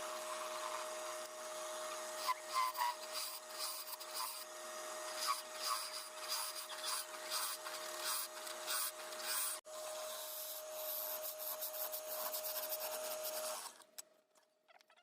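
A power tool running at a steady pitch while it scrapes and sands wood roughly, with scratchy crackles. The sound drops out for an instant about ten seconds in and stops about a second before the end.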